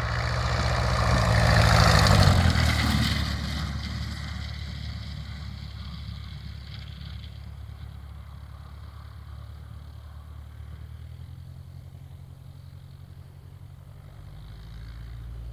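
Single-engine light aircraft, a Jodel DR1050, with its piston engine at full power on the takeoff run. It is loudest about two seconds in as it passes, then fades steadily as it pulls away down the strip.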